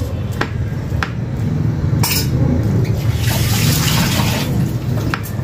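Wet mouth sounds of a man eating rice by hand: chewing and lip-smacking close to the microphone, with a few sharp clicks and a louder, hissy stretch of wet noise in the second half.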